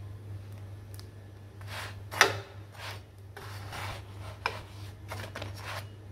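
Metal spatula scraping and pressing on a flatbread on a flat dosa tawa as the bread puffs up: a run of short rasping scrapes, with a sharp click of metal on the pan about two seconds in and a smaller one a little after four seconds.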